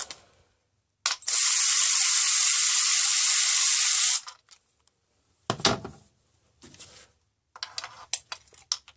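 Ratchet wrench clicking rapidly and evenly for about three seconds while a spark plug is worked out of the engine. About a second later comes a single knock, then a few light metallic clinks near the end.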